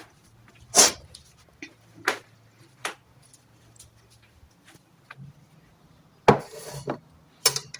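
Kitchen utensils knocking on a hard surface: three separate sharp knocks in the first three seconds, then a short scraping clatter a little after six seconds and another knock near the end.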